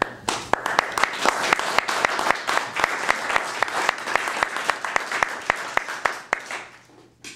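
Audience applauding, with a dense run of sharp individual claps close to the microphone standing out over the general clapping. It thins out and stops about six and a half seconds in.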